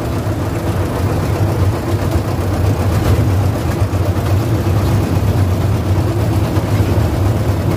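Engine of a passenger ferry boat running steadily, a loud low hum under a wash of noise.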